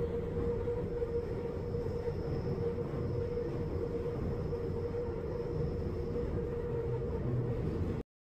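Subway train running, heard from inside the car: a steady rumble of the wheels on the rails with a steady hum through it, cutting off suddenly near the end.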